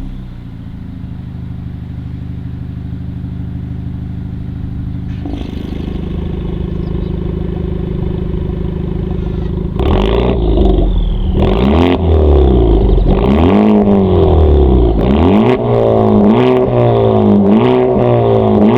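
Honda Civic FK2 Type R's 2.0-litre turbocharged four-cylinder running through a Supersprint exhaust with a valve. It holds a steady note that grows fuller about five seconds in, then from about ten seconds in it is revved repeatedly, the pitch rising and falling with each blip.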